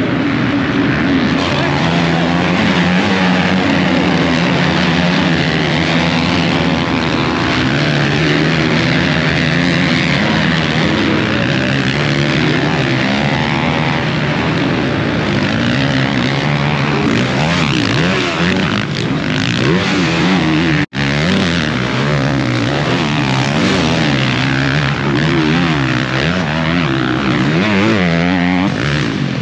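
Several motocross bikes racing, their engines overlapping and revving up and down as riders accelerate through the turns. The sound drops out for a split second about twenty-one seconds in.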